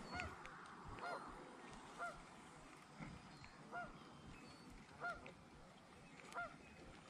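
Geese honking, faint, about six single honks at uneven intervals of a second or more.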